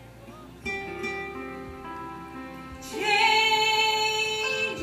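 Gospel song played over a backing track with plucked strings. A woman's voice comes in about three seconds in and holds one long sung note.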